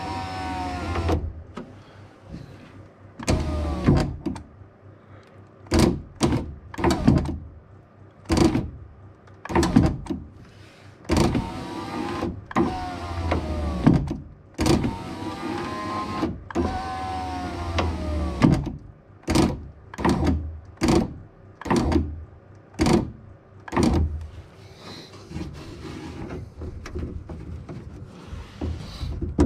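Electric window regulator motor in a Saab 9-3 rear door, running several times with its whine rising and falling, between many sharp clicks and knocks from the regulator and cable. The mechanic suspects a stray piece of broken glass in the mechanism is causing the knocking.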